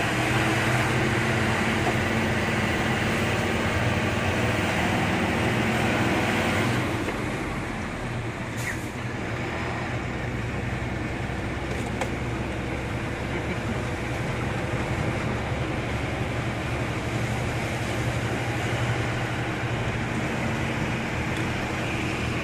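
Bus engine running steadily with road noise, heard from inside the driver's cab while under way; it gets a little quieter about a third of the way in.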